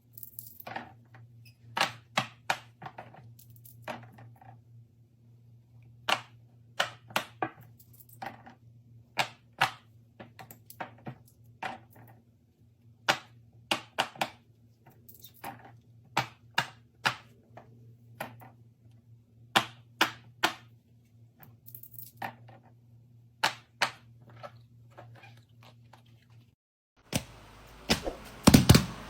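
Silicone push-bubble fidget toys being pressed: a string of irregular sharp pops, often two or three close together, over a steady low hum. Near the end the hum stops, and a hissier recording with a few louder pops takes over.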